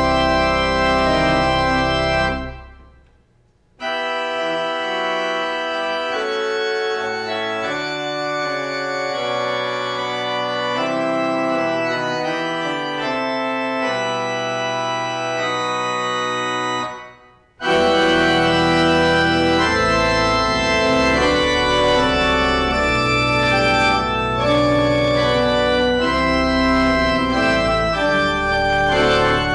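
Organ-like instrumental music in three passages: the first, with steady deep bass notes held under it, fades out about three seconds in; a lighter passage of held chords without bass runs until about seventeen seconds in and cuts off; then a fuller passage with deep bass begins.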